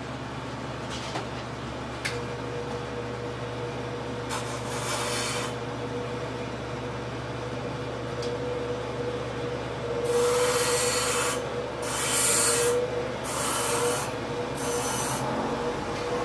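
Grinder running with a steady whine, then from about ten seconds in a series of hissing grinding passes, four or five in a row, as the end of a steel spoke is ground flat and straight.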